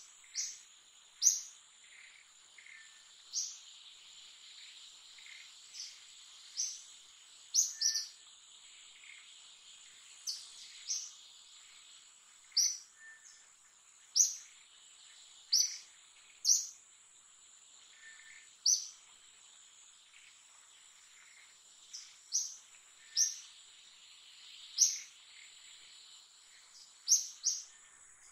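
Birds chirping in the background: short, sharp, high notes, each a quick downward sweep, coming irregularly about every second or two, over a steady high-pitched insect drone.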